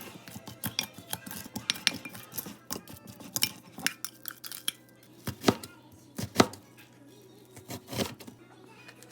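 Kitchen utensils and dishes clattering and clinking: a quick run of small clicks and knocks, with three louder knocks in the second half.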